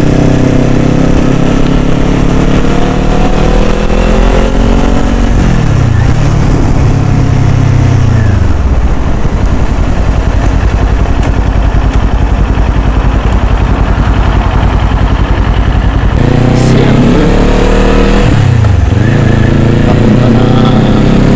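Motorcycle engine running under way, its pitch climbing and then dropping twice, with a stretch of steady, noisy rumble between.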